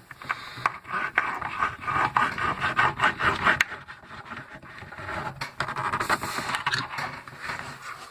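Knife blade scraping and digging into the casing of a dead battery, in irregular strokes with sharp clicks, coming in two spells of harder scraping.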